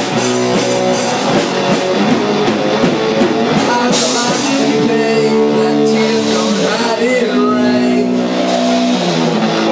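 Rock band playing live: electric guitars holding chords over a drum kit with cymbals, and a voice singing along.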